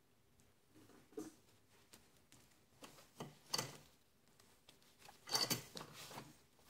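Faint rustling and light clicks of gloved hands handling a grease tube and a rusty brake caliper carrier held in a vise, coming in short irregular bursts, the loudest about five seconds in.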